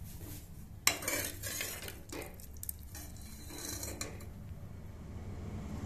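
A metal ladle knocking and scraping against the inside of an aluminium pressure cooker while stirring thick chickpea curry. A sharp knock about a second in is the loudest sound, followed by scraping and a few lighter clinks.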